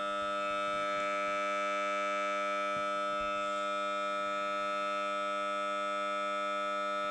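Samsung Galaxy Note 9 loudspeaker giving off a steady electronic drone with many overtones, unchanging throughout. This is a fault noise that starts at random while audio plays through the speaker and stops only when the phone is rebooted.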